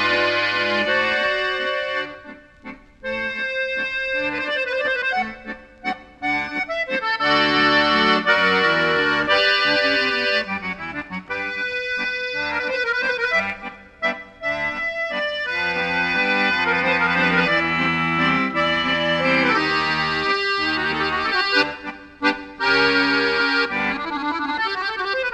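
Instrumental background music: a tune played on accordion, with a few short breaks between phrases.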